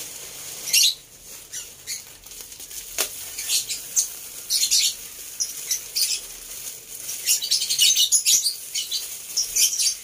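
A thin clear plastic bag crinkling in the hands in irregular bursts as seed is shaken out of it into a plastic tub of mixed bird seed, with a sharp click about three seconds in.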